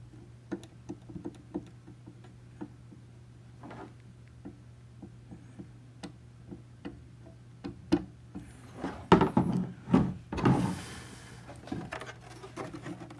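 Light taps and small clicks of a hot tool and a plastic part being handled, then louder knocks and scraping from about eight seconds in, over a steady low hum.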